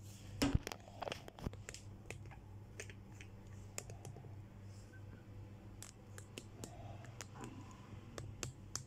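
Phone handling noise: scattered clicks, knocks and rustles as the handheld phone is moved about, the loudest two within the first two seconds, over a steady low hum.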